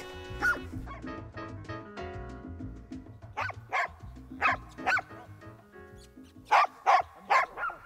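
Russian-European laikas barking at a bear they are holding at bay, in short runs: a single bark early on, a cluster of about four in the middle and another cluster near the end, over background music.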